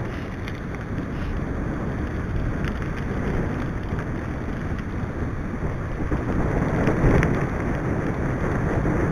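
Wind buffeting the microphone of a camera on a moving mountain bike, over the rumble of knobbly tyres rolling on a tarmac lane, with a few faint clicks and knocks. The noise swells a little about seven seconds in.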